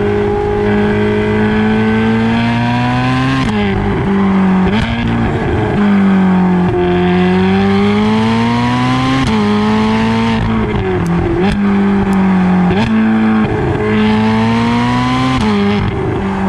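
Ferrari California 30's front-mounted 4.3-litre V8 under hard acceleration, rising in pitch through the gears with quick drops at each dual-clutch upshift. A few sharp exhaust snapbacks crack at the shifts.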